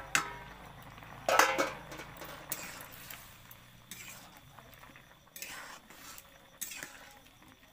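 Metal spatula and ladle scraping and clinking against a steel wok as a thin curry is stirred. The strikes come several times, the loudest about a second and a half in.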